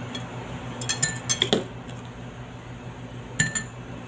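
Metal spoon clinking against a glass mixing bowl: a few sharp clinks about a second in, and another pair near the end.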